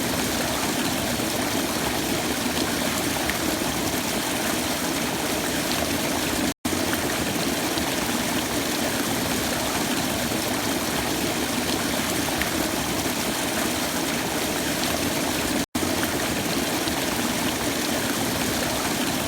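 Waterfall rushing steadily, a dense even roar of falling water. It cuts out for an instant twice, about a third of the way in and again near the end.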